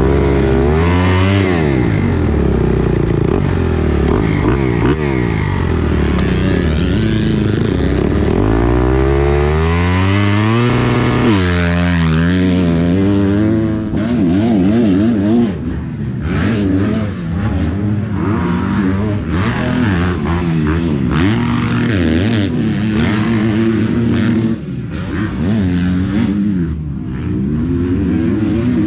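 Kawasaki motocross bike's four-stroke engine revving and pulling away, its pitch rising and falling repeatedly through the first half. In the second half dirt-bike engines keep running, less steadily, with short scrapes and clatter.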